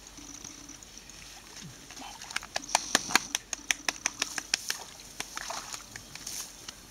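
A young Bracco Italiano puppy scrambling out of shallow water and up a grassy bank with a duck dummy in its mouth. It makes a quick, irregular run of sharp splashes and rustles lasting about two and a half seconds, starting a little over two seconds in.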